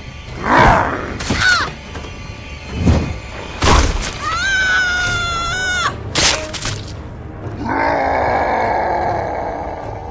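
A monster transformation in dramatic sound effects: several sudden hits and whooshes, a long wavering cry in the middle, then a harsh growling roar from about eight seconds in.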